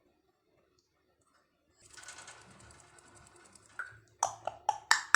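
African grey parrot making a soft, fast rattling sound, then a string of sharp clicks in the last second or so.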